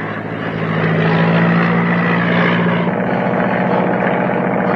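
Biplane's propeller engine droning steadily in flight overhead. Its tone shifts about three seconds in.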